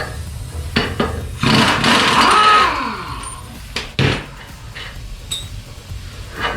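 A few metal knocks and a scraping rattle lasting about a second, from handling a go-kart's rear wheel and hub on its axle.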